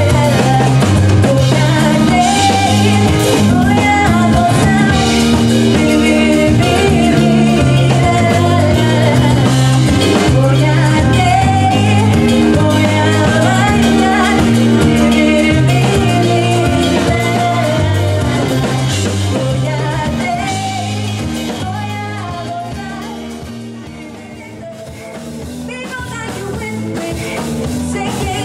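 Live band playing with a woman singing lead into a microphone over bass and drums. The music sinks in level about three quarters of the way through and comes back up near the end.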